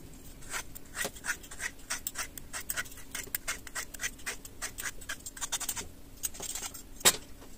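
Fork scraping and clicking against a plate in quick, irregular strokes, with one louder knock near the end.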